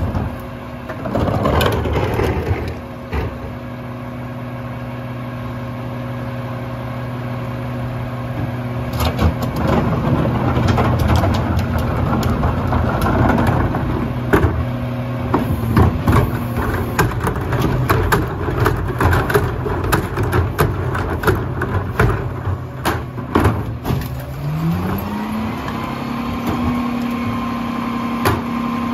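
Mack LR rear-loader garbage truck's diesel engine idling steadily while plastic carts are tipped into the McNeilus hopper, with repeated knocks and clatter of carts and falling recycling. About 24 seconds in, the engine speeds up and holds at a higher, steady pitch, as it does when the hydraulic packer runs a cycle.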